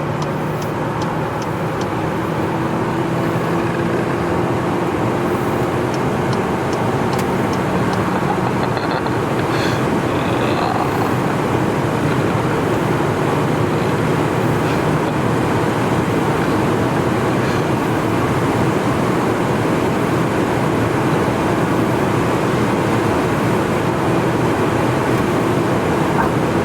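Steady road noise inside a moving car's cabin: an even rush of tyres and wind with a low engine hum.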